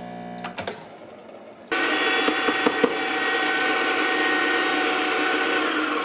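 An espresso machine's pump hums and cuts off with a few clicks. About two seconds in, a Breville Smart Grinder Pro electric burr grinder starts and runs steadily, grinding a dose of coffee beans.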